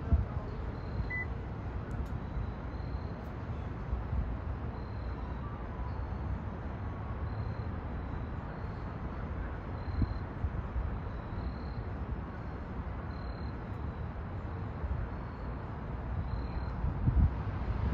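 Outdoor city background noise: a steady low rumble. Faint, short, high beeps recur every second or two.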